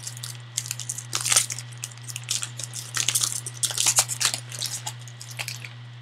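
Trading-card pack wrapping crinkling and rustling in irregular bursts as a pack is torn open and the cards are handled, over a steady low hum.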